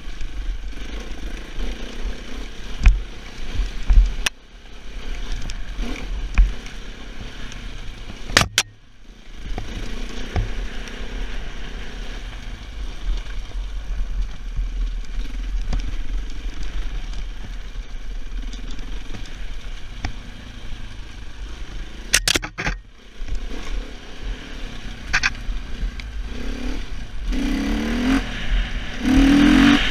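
Husaberg 450FE single-cylinder four-stroke enduro motorcycle ridden over rough ground, its engine rising and falling with the throttle, with a few sharp knocks as the bike jolts over rocks. The revs pick up near the end.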